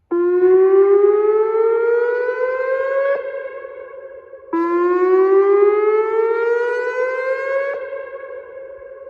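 Whelen WPS-2905 electronic siren sounding its whoop alarm code as a test: a loud tone that climbs steadily in pitch for about three seconds, then breaks off, with the sound hanging on and fading before the next whoop starts. Two full whoops are heard, and a third begins at the very end.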